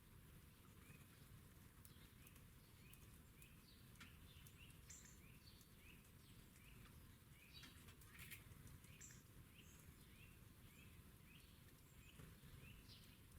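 Faint chirping of small garden birds: short rising chirps repeated every half second or so, with a few higher notes and some light taps.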